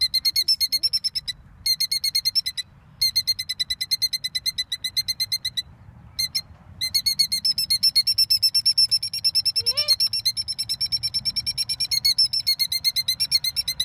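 A ground-nesting bird giving rapid, shrill alarm notes, about ten a second, in long bouts with short breaks: an alarm display in defence of its eggs against nearby people.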